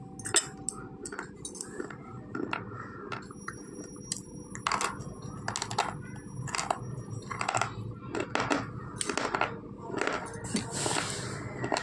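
Slate pencils being bitten and crunched: a few scattered sharp clicks, then a run of hard crunches about two a second through the second half.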